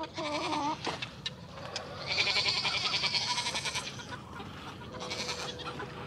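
Nigerian Dwarf goats bleating: a short wavering call right at the start, then a longer, louder, quavering bleat about two seconds in, and a fainter one near the end.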